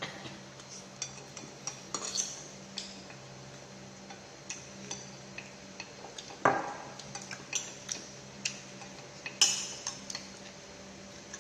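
Eating utensils clinking against dishes at a meal: scattered light clicks and taps, with two louder knocks about six and a half and nine and a half seconds in.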